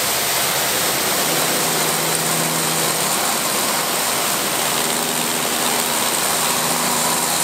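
Kärcher K3 electric pressure washer running steadily: the hiss of its high-pressure water jet spraying against a louvred rain-shutter box panel, with the machine's motor humming underneath, the hum growing stronger about a second in.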